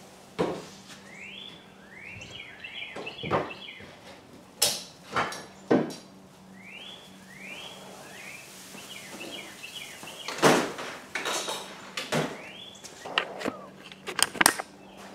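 A songbird singing three bouts of quick rising chirps, mixed with scattered knocks and clatter of tools and gear being handled on a workbench; the loudest knock comes about ten seconds in.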